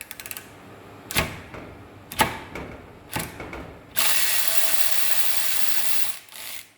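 Snap-on CTR867W1 brushless long-reach cordless ratchet straining against a fastener torqued to 50: several short jolts about a second apart, then about two seconds of steady running as the fastener breaks loose, before it stops.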